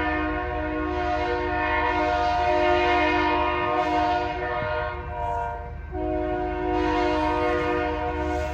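Diesel locomotive air horn sounding a steady multi-note chord, held long, released briefly about two-thirds of the way through, then sounding long again, over the low rumble of the passing train.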